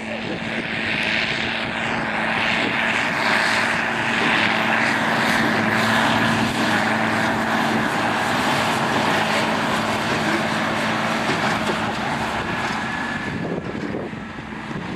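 A tractor pulling a Massey Ferguson 2170 large square baler at work: a steady engine and machinery drone that grows louder over the first few seconds, holds, then drops off near the end.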